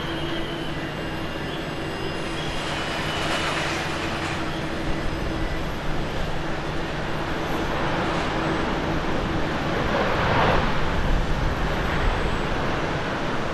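Boeing 737-800 jet engines rumbling as the airliner rolls out along the runway after touchdown. The sound swells louder about ten seconds in.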